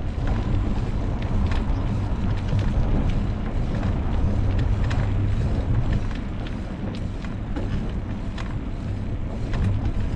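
Wind buffeting the microphone of a camera on a moving bicycle: a loud, steady low rumble with scattered light clicks.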